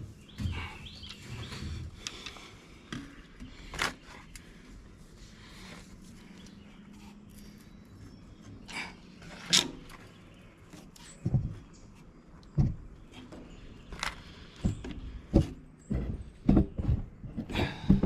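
Scattered sharp knocks and clicks of hand tools and metal parts being handled while working at a stuck fitting on a Cat 318B excavator. They are sparse at first and come quickly, one after another, over the last few seconds.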